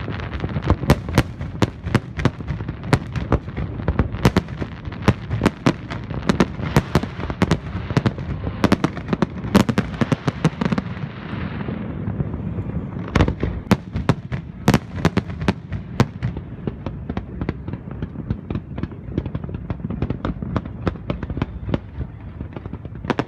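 Fireworks display: aerial shells bursting in rapid succession, several bangs a second over a continuous low rumble. About ten seconds in, a denser crackling hiss swells and eases off briefly before another run of bangs starts.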